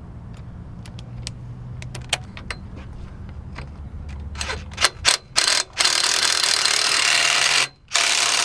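Metal tools clinking and clicking as a bolt is refitted during a hose repair. From about five seconds a loud steady hiss starts suddenly, breaks off briefly and resumes.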